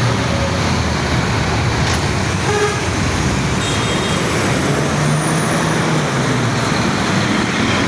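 Steady road traffic noise from buses passing, with a couple of short, faint horn toots about two and a half and about four seconds in.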